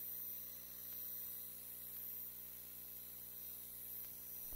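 Faint steady electrical mains hum with a light hiss, holding unchanged.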